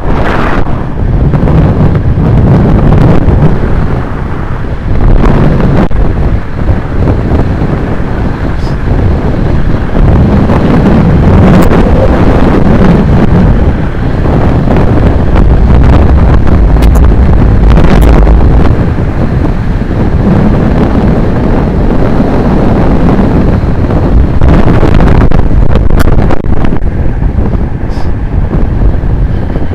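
Strong wind rushing and buffeting over the microphone of a camera riding on a road bike descending at speed, with a few short knocks.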